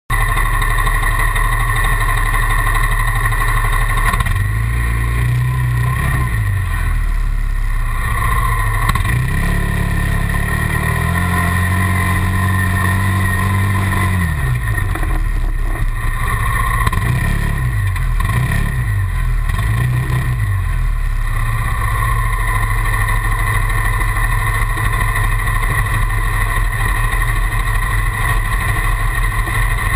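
Suzuki LTZ 400 quad's single-cylinder four-stroke engine revving up and down several times as it is ridden on a dirt track, over a steady engine drone close by. After about 21 seconds the revving stops and only the steady drone remains.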